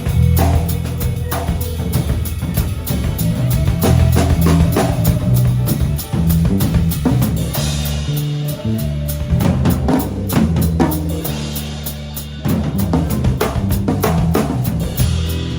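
Instrumental band music: a drum kit playing a busy groove of kick, snare and rimshots over an electric bass line, with electric guitar.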